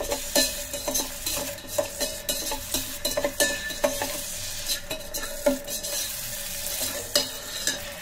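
A metal spoon stirring and scraping inside the steel pot of an electric kettle, with many quick clicks and scrapes, over the steady sizzle of a chili and spice mixture frying in oil.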